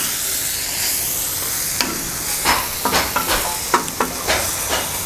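Onion-tomato masala with ground spices sizzling in oil on a large flat tawa as it is stirred. From about two seconds in, quick repeated scraping strokes against the tawa sound over the sizzle.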